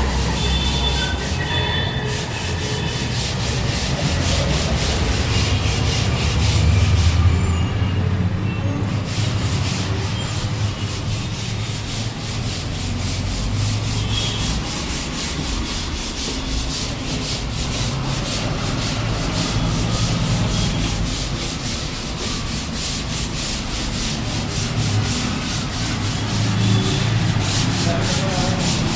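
Sanding of a gypsum board ceiling repair, a continuous scraping rub made of quick repeated strokes.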